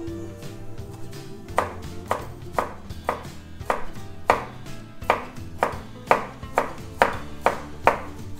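Chef's knife chopping a carrot on a plastic cutting board: sharp chops about twice a second, starting about a second and a half in.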